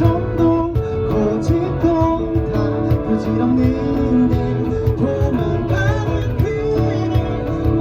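Live pop band playing an instrumental passage: guitars carrying the melody over bass and a steady cajón beat.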